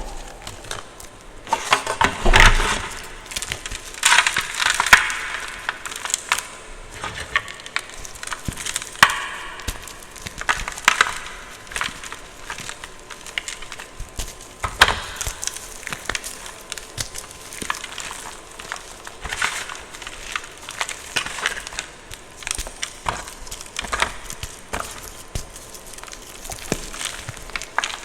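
Gym chalk being crushed and crumbled: an uneven run of crisp crunches and crackles, the loudest few in the first ten seconds.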